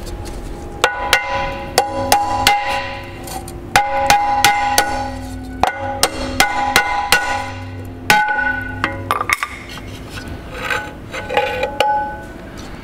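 Dozens of hammer taps on an outboard's seized propeller, in quick runs of about two to three a second with short pauses, each strike ringing on. The taps knock the crusty propeller loose from its shaft.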